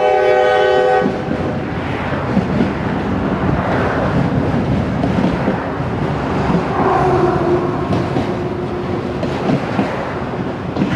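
Freight locomotive's air horn sounding a steady multi-note chord that cuts off about a second in, then the continuous rumble and clatter of loaded autorack cars rolling past.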